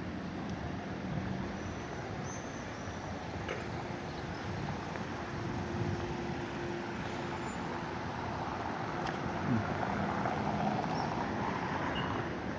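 City street traffic noise: a steady wash of passing cars with a faint engine hum, growing a little louder for a few seconds near the end as a vehicle goes by.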